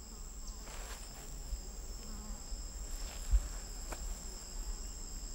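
Insects droning steadily in two high, even tones, with a single soft thump about three seconds in.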